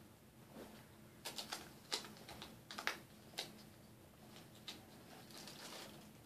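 Handling noise: a quick run of light clicks and taps in the first half, then a single click a little later, from the new skate shoes and their packaging being handled.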